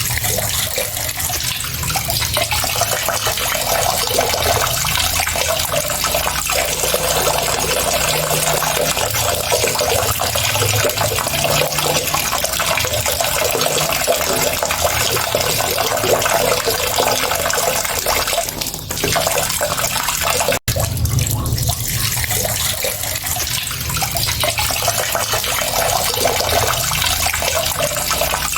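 Water running steadily, a dense even rush, broken by a momentary cut about twenty seconds in.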